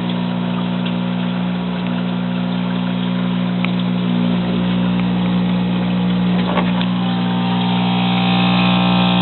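Steady electric hum of a 90-litre air pump on an aquaponics system, with a few light clicks; the hum grows fuller near the end.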